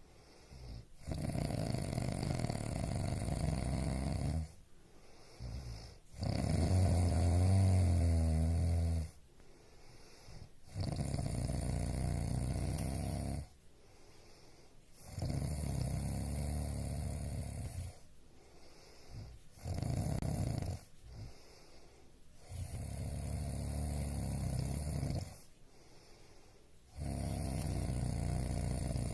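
A sleeping person snoring heavily: about seven long snores, each two to three seconds, coming roughly every four seconds with quiet breaths between, one of them short about two-thirds of the way through.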